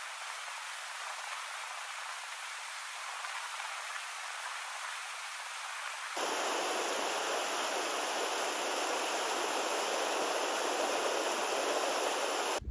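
Mountain stream water rushing steadily through a rock gorge and over boulders. About halfway through, the sound cuts abruptly to a louder, fuller rush from another stretch of white water.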